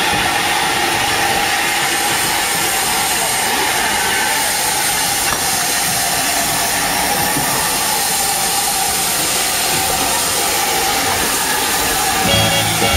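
NER Q6 0-8-0 steam locomotive No. 63395 blowing off steam at a standstill: a loud, steady hiss from the safety valves on top of the boiler, a sign that the boiler is at full working pressure. Music comes in about a second before the end.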